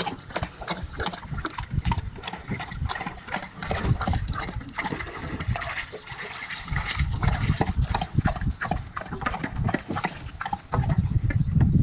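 Tigers wading and moving about in shallow pool water, with irregular splashes and knocks; a louder low sound comes in near the end.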